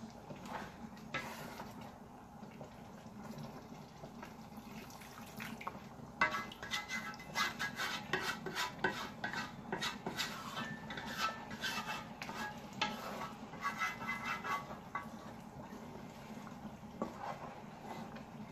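Wooden spoon stirring a thick chicken stew in an aluminium pot, scraping and knocking against the pot. The strokes come fast and close together from about six seconds in until about fifteen seconds in, and are sparse before and after.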